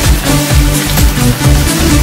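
Electronic dance music with a steady, driving beat and heavy bass.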